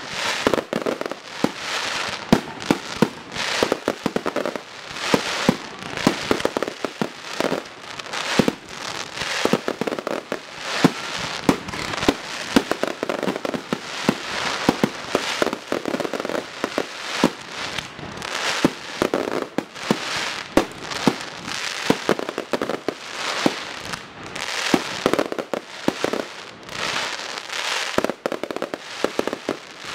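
Professional aerial fireworks display: shells bursting in rapid succession, a dense run of sharp bangs several a second with no let-up.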